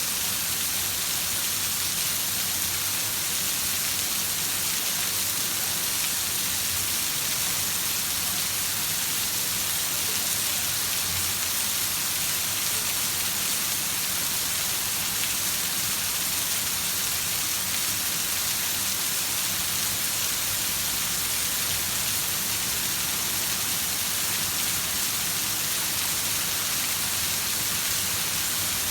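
Heavy rain falling in a steady, even hiss that neither builds nor eases.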